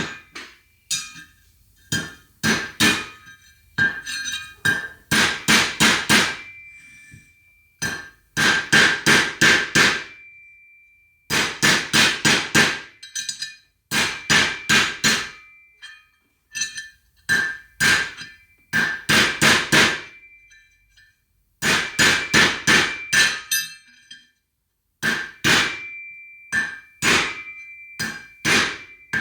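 Hammer driving the old bearing race against a new inner bearing race to seat it in a Toyota front hub: quick groups of four to six ringing metal strikes with short pauses between them. This is the race being worked down into its bore.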